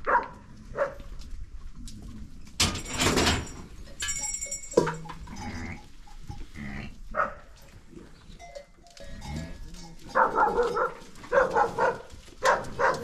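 Goats and sheep bleating, with a run of calls close together in the last few seconds and a louder noisy burst about three seconds in.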